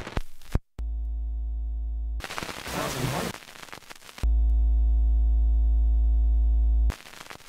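A steady low hum with a stack of buzzing overtones, heard twice: once for over a second, then from about four seconds in for nearly three seconds and cutting off sharply. A rush of noise fills the gap between.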